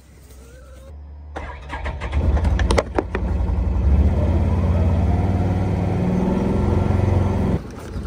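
Side-by-side utility vehicle's engine running, heard from inside the cab. The low hum builds over the first few seconds, with a few clicks about three seconds in, then runs steadily and cuts off abruptly near the end.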